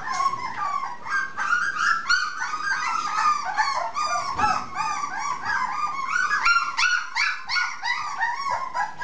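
Young puppies whimpering and yipping: a continuous string of short, high-pitched cries, several a second.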